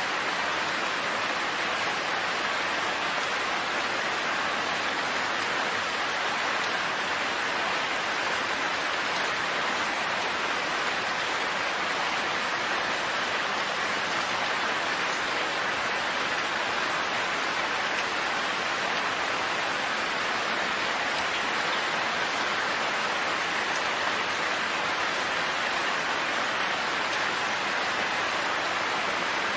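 Steady rain falling, an even unbroken hiss of rain with no thunder or other events.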